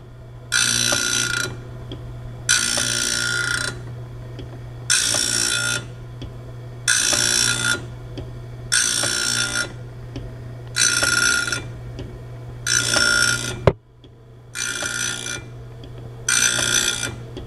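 Grinding wheel of a homemade automated bandsaw-blade sharpener grinding the blade's teeth one at a time. Each grind is a high, rasping burst of about a second, repeating roughly every two seconds as the blade is indexed tooth by tooth, over the steady hum of the grinder motor. A single sharp knock comes about three-quarters of the way through.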